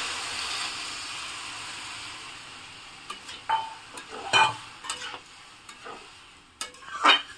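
Water poured into a hot kadhai of frying drumstick-and-potato masala sizzles, the hiss fading over the first few seconds as the pan cools. A spatula then stirs the curry, scraping and knocking against the metal kadhai several times, loudest near the end.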